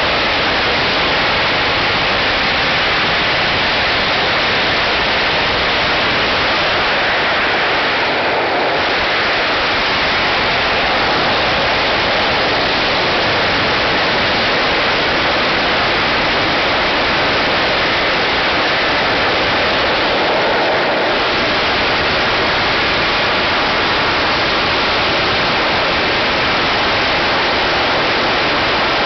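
A huge laid-out mass of firecrackers exploding continuously, the bangs so dense that they blur into one loud, steady wall of crackling noise.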